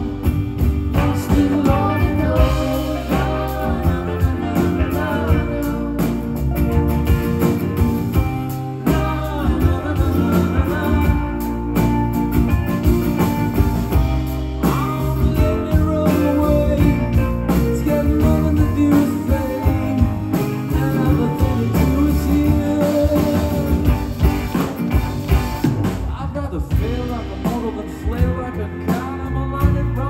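A band playing a song live, heard from the audience: acoustic and electric guitars and a drum kit, with singing.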